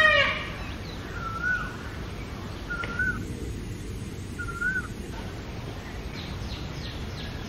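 An Indian peacock's loud repeated call, its last note ending a moment in. After it come three faint short rising-and-falling notes about a second and a half apart, then faint chirps near the end.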